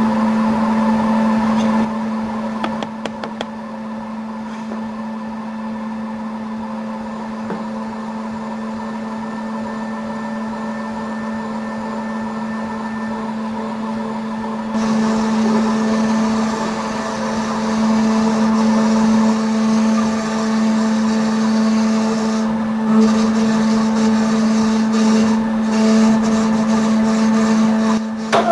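Plus Mill S5 dental 5-axis milling machine's spindle running with a steady hum while its small end mill cuts abutments from a zirconia disc. The cutting hiss grows louder about halfway through, with a few scattered clicks.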